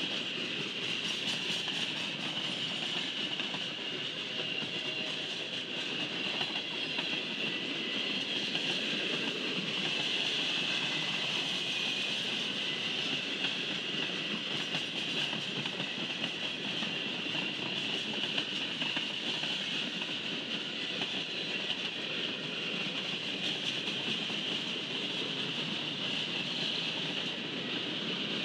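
Freight train cars (boxcars, tank cars and centerbeam flatcars) rolling steadily past on the rails, a continuous wheel rumble with a steady high hiss over it.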